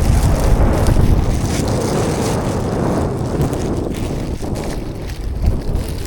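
Wind buffeting the microphone: a loud, uneven low rumble with a hiss above it, easing slightly toward the end.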